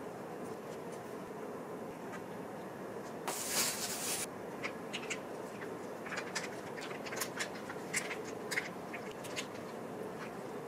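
Dry rice paper crinkling as it is handled and folded around a slice of raw pork belly on a wooden cutting board: a louder rustle about three seconds in, then a run of small, sharp crackles, over a steady low hiss.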